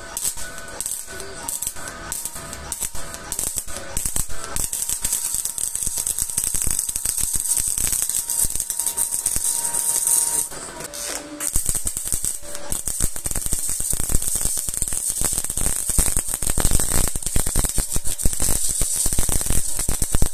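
MIG welding arc on 304L stainless pipe with solid 308 wire, crackling steadily as the weld bead is laid. The arc stops about ten seconds in and strikes again roughly a second later.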